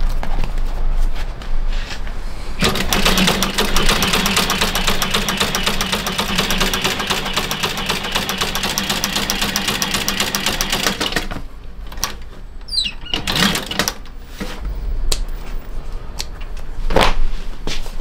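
Sewing machine stitching a leather boot upper, running fast and evenly for about nine seconds before stopping. Before and after it come leather pieces being shuffled on a table and a few light knocks.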